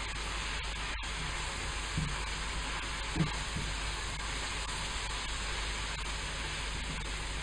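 Diced carrots, mushrooms and bell peppers sizzling steadily in a frying pan as they are stirred with a spatula, which knocks against the pan a couple of times.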